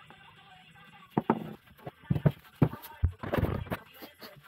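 A run of hard knocks and clunks starting about a second in, several separate hits and then a quick cluster, from compressor parts and tools being handled while a twin-cylinder truck air compressor is taken apart.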